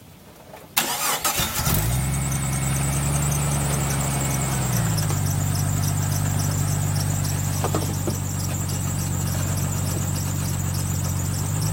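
A 1999 Jeep Cherokee XJ engine is cranked and starts about a second in, then idles steadily; about five seconds in the idle drops to a slightly lower pitch, and a faint high whine heard over the first few seconds stops with it.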